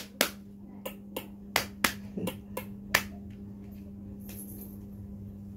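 A string of about nine sharp, quick clicks over the first three seconds, made by a person to catch a puppy's attention, then they stop; a steady low hum runs underneath.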